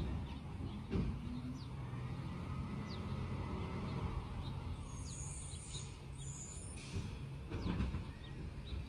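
Garbage truck's diesel engine running at a distance, a steady low rumble, with two short high hisses a little past the middle. Birds chirp throughout.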